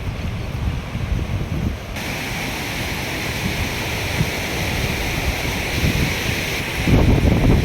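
Steady rush of a waterfall's falling water, with wind buffeting the microphone. The water's hiss comes in abruptly about two seconds in, and wind gusts pick up again near the end.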